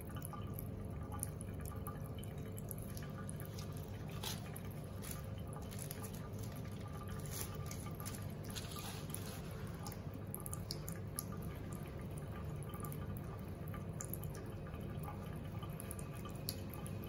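Water dripping into a ceramic sink: scattered single drops over a steady low hum.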